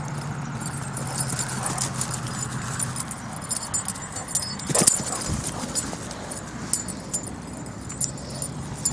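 A German Shorthaired Pointer galloping on grass: quick, irregular footfalls with a light jingle of collar tags, over a steady low background hum, and one sharp knock about halfway through.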